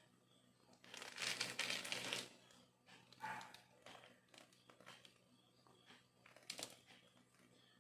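Plastic piping bag crinkling as it is squeezed and handled, one burst lasting about a second and a half near the start, followed by a few faint handling sounds.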